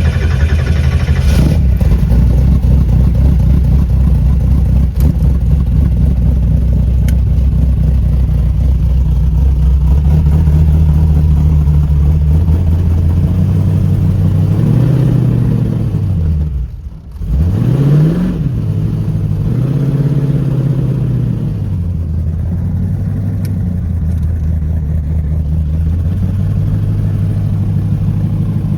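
V8 engine of a Chevy Vega wagon running at a steady speed. Around two thirds of the way through its revs swing up and down, drop sharply for a moment and then climb again.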